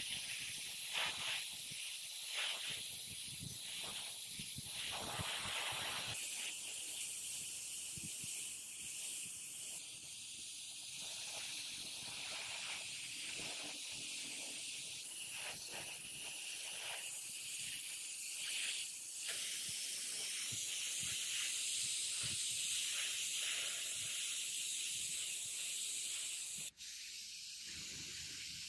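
Grey primer being sprayed onto a bare metal model car body: a steady hiss of spray, broken by a few short gaps and sudden changes.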